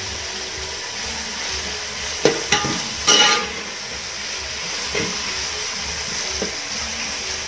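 Sliced onions sizzling gently in oil in a metal pot, sweating rather than browning. A spoon stirs and scrapes them against the pot several times, loudest a little past two and three seconds in.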